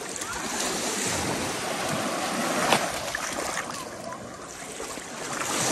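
Small lake waves washing onto a sandy shore, with wind buffeting the microphone and a golden retriever puppy splashing through the shallows; a sharp splash comes near the middle.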